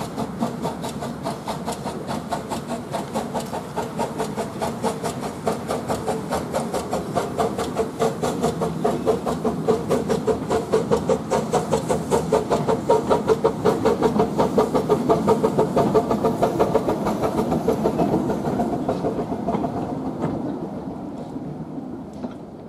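Small narrow-gauge steam tank locomotive working a short goods train, its exhaust beating in quick, even chuffs. The chuffs grow louder as the train passes, then fade away near the end.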